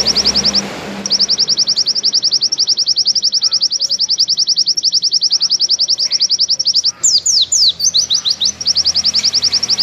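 White-eye (pleci) singing a long, fast trill of identical high, clear notes, about a dozen a second: the 'nembak panjang' song that fanciers use to train other pleci. The trill breaks off briefly near the start, and about seven seconds in gives way to a quick run of downward-sweeping notes before resuming.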